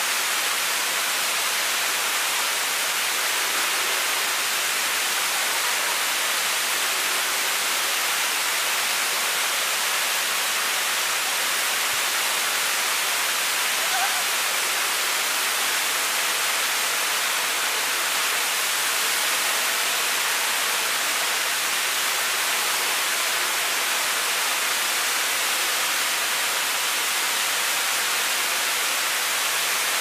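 Waterfall: a steady, even rush of falling water that holds the same level throughout, with no pitch to it.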